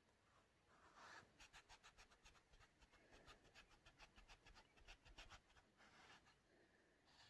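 Faint, quick dabbing strokes of a paintbrush on canvas, several a second, starting about a second in and stopping about a second and a half before the end.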